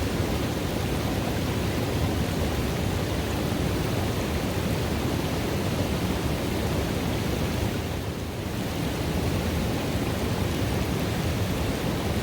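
River water running into a pool: a steady, even rush of flowing water, briefly a little softer about eight seconds in.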